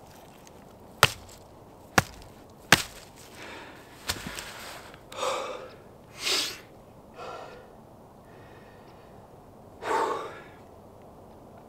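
Three sharp knocks a little under a second apart, with a weaker one shortly after, then a man's heavy, breathy exhales and sighs, four of them spread out, as he gets his breath back in the rush of excitement after landing a big perch.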